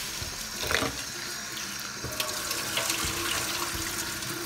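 Kitchen faucet running into a plastic colander of string beans in a stainless steel sink, the water splashing over the beans as hands toss them. A few light knocks sound through the water.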